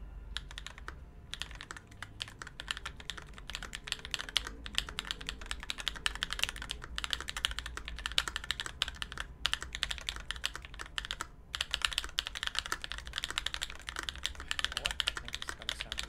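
Steady fast typing on a custom mechanical keyboard: Blaecks switches lubed with 205g0, mounted in a thick aluminium plate in a top-mount case, under GMK doubleshot ABS keycaps. Dense key clicks with a few brief pauses.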